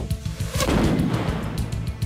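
Fast-paced background music with a fast beat, a heavy boom at the start and a sweep falling in pitch about half a second in.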